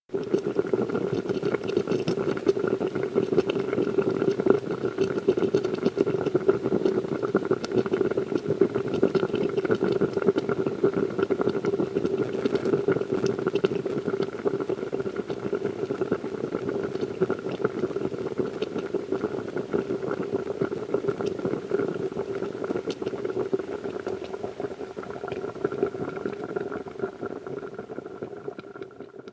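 Kitchen sound: liquid bubbling on the boil, a dense steady crackle over a constant hum, fading out near the end.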